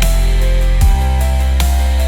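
Background music: held synth tones over a deep sustained bass, with a drum hit just under a second in and a lighter one near the end.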